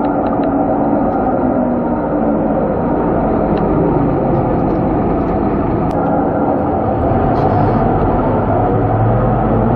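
Cabin noise of a Scania K230UB city bus under way: the diesel engine and road noise make a steady loud drone, with a few faint rattling clicks from the interior.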